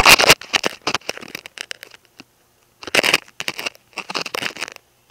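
Handling noise on a phone's microphone: irregular rubbing and knocking bursts as the phone is moved and positioned, stopping suddenly near the end.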